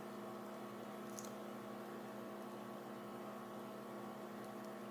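Steady electrical hum in a quiet room, with one faint click about a second in.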